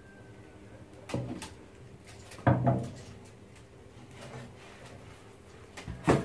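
Kitchenware knocking three times over a faint steady hum: once about a second in, loudest about two and a half seconds in, and again near the end.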